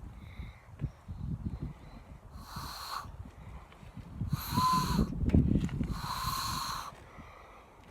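Hand loon call attempts: air blown into cupped hands at the thumb knuckles, giving three breathy, hissing whistles, each with a faint held hoot underneath; the third is the longest at about a second.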